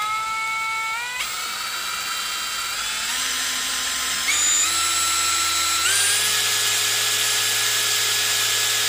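Cazar CZ-21VD 21-volt brushless cordless drill/driver running free with nothing in the chuck. Its motor whine steps up in pitch several times as the variable-speed trigger is squeezed further.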